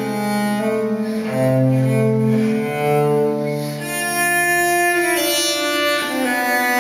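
Recorded music played back through Infinity Alpha 30 loudspeakers: a bowed-string piece with low, cello-like held notes that change about once a second.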